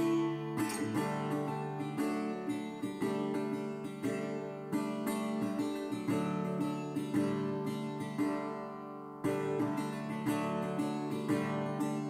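Background music: acoustic guitar, plucked and strummed steadily, with a short break about nine seconds in.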